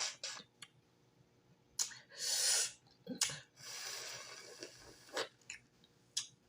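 Mouth sounds of someone eating boiled cow foot: scattered wet lip smacks and clicks, with airy sucking at the bone, loudest in a short burst about two seconds in and again in a longer, softer stretch a little later.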